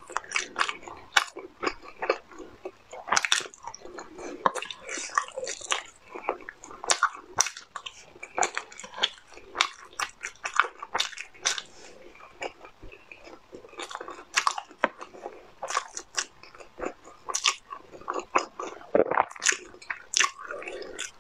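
A person eating close to a clip-on microphone: repeated bites and chewing, with sharp, irregular crunching clicks throughout.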